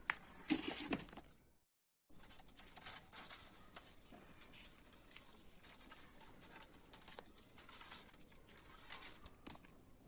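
Faint rustling and scattered light clicks of kittens moving about in the branches of a pomegranate tree, broken by a brief dead-silent gap just before two seconds in.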